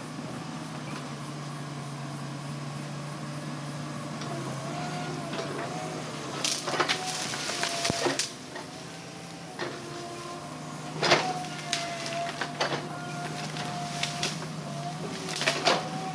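Heavy tracked earthmoving machine at work: its diesel engine running steadily under a thin, wavering metallic squeal, with loud metal clanks and knocks from the tracks and steelwork in clusters, the loudest a little before the middle, about two-thirds in, and near the end.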